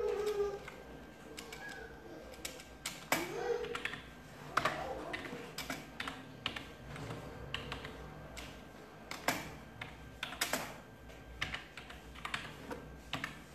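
Irregular clicking of typing on a keyboard, a few keystrokes at a time, with a short hum of a man's voice about three seconds in.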